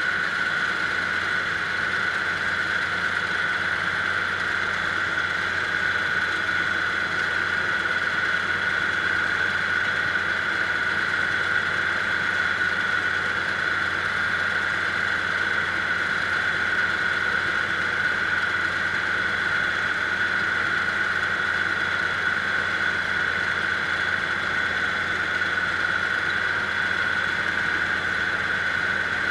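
Kubota L3750 diesel tractor running steadily with its PTO-driven BER VAC snowblower engaged, a constant high whine over the engine.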